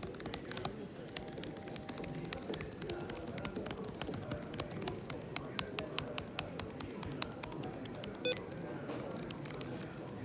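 Keys being typed on an HP Omen X 15 gaming laptop's keyboard: a quick run of keystroke clicks that thins out near the end.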